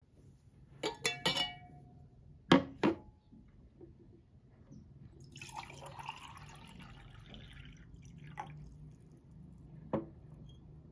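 Glass clinking with a brief ring, then two knocks as glassware is set on a wooden tray. Water is poured from a glass carafe into a ribbed glass tumbler for about two and a half seconds, and a last knock comes near the end as the carafe is set down.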